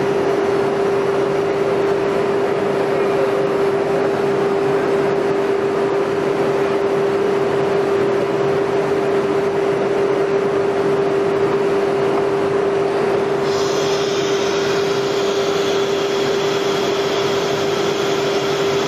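Spindle of an automatic-tool-change CNC router cutting MDF. The spindle keeps one steady high whine over a dense rush of cutting and dust-extraction noise. The rush turns brighter about two-thirds of the way through.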